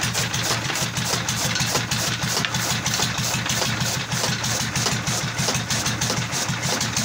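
Petter diesel engine running steadily with a fast, even thumping beat, driving a toka chaff cutter.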